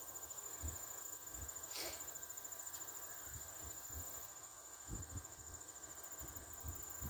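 Crickets chirping in a steady, high-pitched trill, with irregular low bumps of wind on the microphone.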